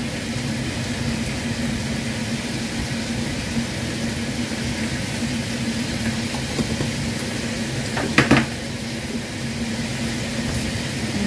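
Pork and vegetables frying in a pan on a gas stove: a steady sizzle over a low steady hum. A short clatter about eight seconds in.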